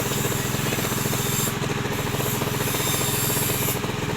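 Small engine of a walk-behind cultivator running steadily with a fast, even firing rhythm.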